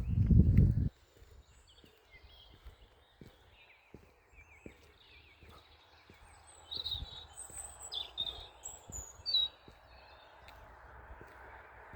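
Wild birds chirping and calling, with short high chirps coming in a cluster past the middle. A loud low rumble fills the first second and cuts off suddenly.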